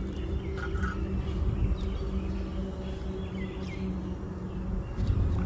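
Outdoor background: a steady low hum and rumble, with a few short bird chirps and faint ticks.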